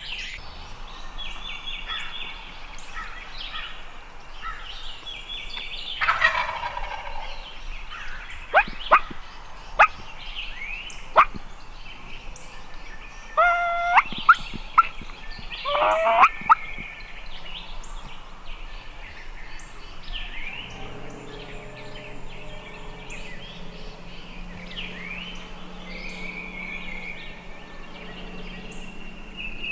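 Wild turkey gobbler gobbling, loudest about six seconds in, with more loud calls around the middle, while small birds chirp throughout. A low steady hum comes in over the second half.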